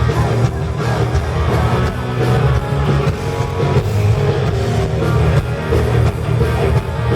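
Live heavy metal band playing loud, with electric guitar over bass and a steady drum beat.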